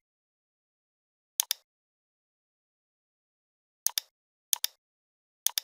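Computer mouse clicks: four sharp double clicks, each a press and release, spaced irregularly over a few seconds, with silence between them.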